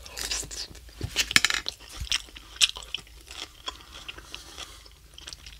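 A person chewing a mouthful of Greek salad, crisp lettuce crunching in short, irregular bites.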